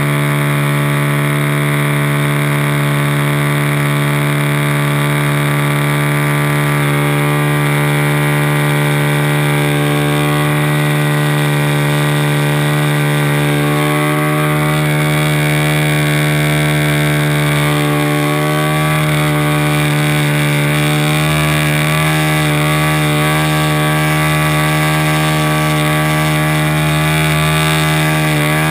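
An RC Cub model airplane's motor and propeller running steadily at cruise in flight, heard from inside the fuselage, with slight wavering of pitch in the second half.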